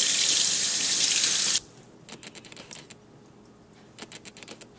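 Kitchen tap running into a stainless steel sink as a raw prawn is rinsed under the stream. The water cuts off suddenly about a second and a half in, leaving faint scattered clicks and drips.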